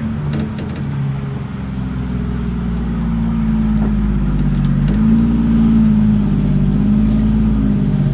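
Electric power-window motor in a truck door running as the glass is driven up, a steady hum that wavers in pitch as the load changes, with a faint high whine over it; it cuts off abruptly at the end.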